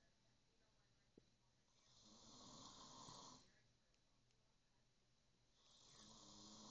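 A man snoring in his sleep: two faint, long snores about four seconds apart, each lasting about a second and a half, the second still going at the end, with quiet breathing pauses between.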